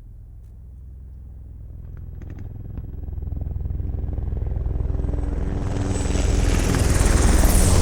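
Helicopter main rotor beating in a fast, even rhythm, growing steadily louder as it approaches and peaking near the end with a rising rush of higher noise.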